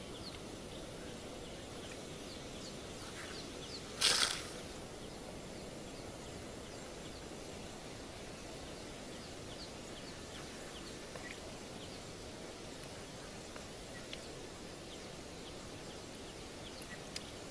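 Steady outdoor background hiss with faint high chirps, typical of distant birds, scattered throughout. About four seconds in there is one short, loud burst of noise.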